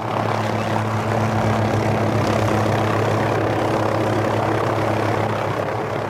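Helicopter running: a steady hum of engine and rotor with a low drone, easing off a little near the end.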